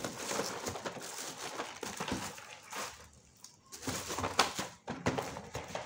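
Paper-covered firecracker boxes and plastic-wrapped sparkler packets being rummaged through and shifted by hand inside a cardboard carton: irregular rustling and crinkling with small knocks, the sharpest knock about four and a half seconds in.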